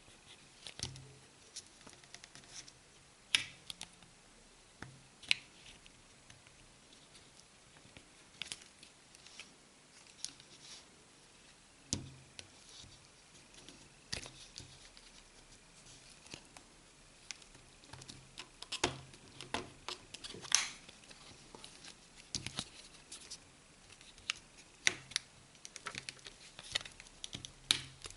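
A plastic card scraping and clicking along the seam of a phone's plastic back frame as it is pried around the edge, with irregular small clicks and scrapes.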